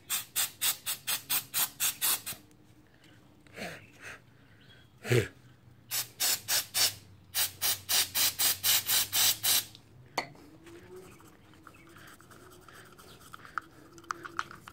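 Aerosol can of throttle body cleaner sprayed in short rapid bursts, about four a second, in three runs, with one thump about five seconds in. After about ten seconds a toothbrush scrubs faintly inside the throttle body's bore, with light scratchy ticks.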